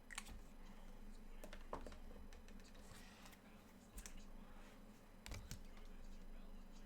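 Faint, scattered light clicks and taps, about six in all, spread irregularly over a quiet background.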